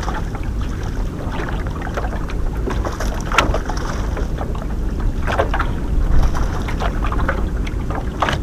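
Wind on the microphone and choppy water slapping against a small boat's hull: a steady low rumble with scattered splashes and knocks, the sharpest a little over three seconds in and again around five seconds in.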